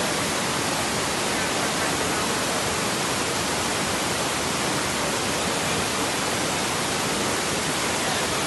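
Swollen, muddy river rushing over the rapids of a waterfall cascade: a steady, loud rush of white water with no breaks.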